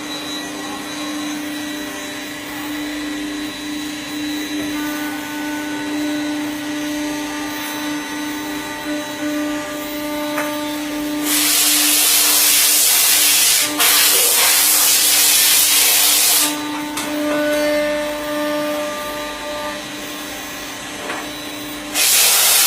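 CNC machine running: a steady motor hum under whining tones that start and stop as the axes move. From about halfway through for five seconds, and again at the very end, a loud rushing hiss covers everything.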